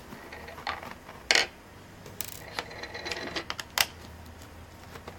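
Scattered light clicks and knocks of a plastic laptop case being handled, with a sharper click about a second in and another near four seconds.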